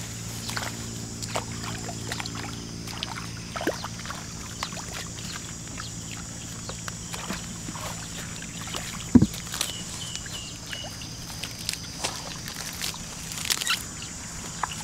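Hands splashing and squelching in shallow muddy paddy water while groping for fish, in small irregular splashes with one sharper knock about nine seconds in. A steady high insect drone runs underneath.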